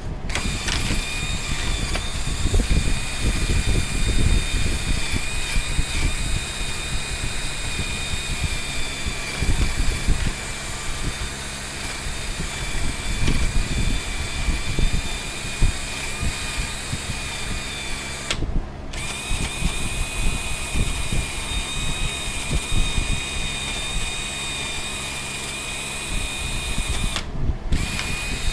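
Power tool, drill-like, running in long steady stretches with a high whine over a rough rumble, breaking off briefly about two-thirds of the way through and again near the end.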